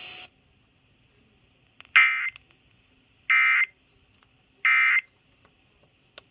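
Three short, loud bursts of Emergency Alert System end-of-message data, the digital SAME code that closes the alert, about 1.3 seconds apart.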